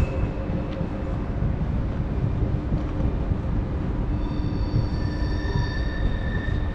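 Train moving through the station: a steady low rumble with faint steady whining tones. About four seconds in, higher whining tones join for a couple of seconds.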